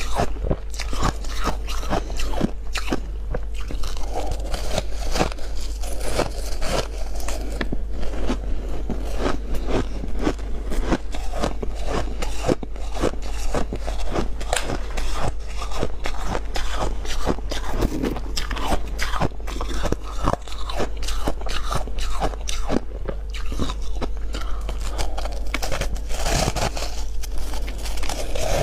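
Close-up crunching of someone biting and chewing big chunks of freezer frost, with dense, irregular crackling crunches throughout.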